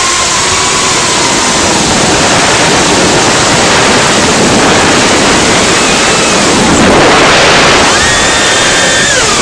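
Cinequeen FPV quadcopter's motors and propellers whining over loud wind rush, as picked up by its onboard camera. The motor whine rises and falls in pitch, climbing to a higher, steadier whine about eight seconds in and dropping again near the end.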